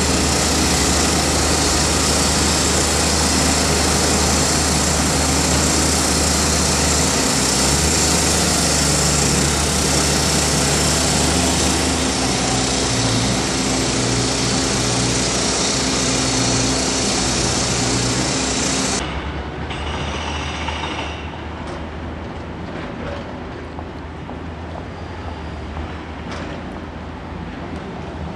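Loud, steady vehicle and traffic noise: a dense hiss over a low hum, with engine tones that step in pitch now and then. About two-thirds of the way through it drops to quieter street sound with a few light knocks.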